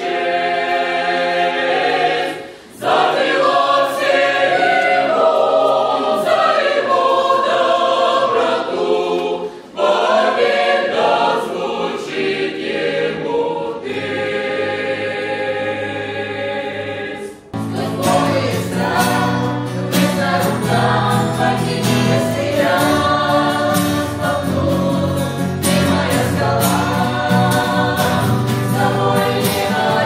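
Church choir singing a hymn in several voices. About seventeen seconds in it cuts to a fuller sound of a group singing with acoustic guitars.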